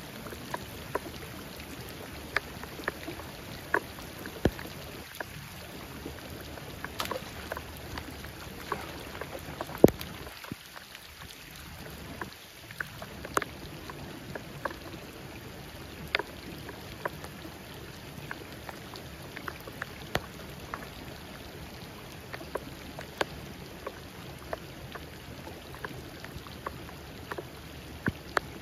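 Steady hiss of rain and running canal water, broken by irregular sharp ticks of raindrops landing close by, about one a second, with one louder tick about ten seconds in.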